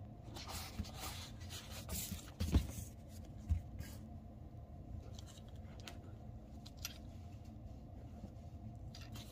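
Light handling noises: cloth rustles, a few small clicks and two soft knocks as a brake caliper and a foam block are set down on a microfiber towel on a table, over a faint steady room hum.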